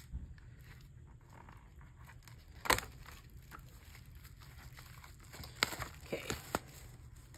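Album packaging and inserts being handled: one sharp click about a third of the way in, then a few quick clicks and crinkles in the second half, over a low steady hum.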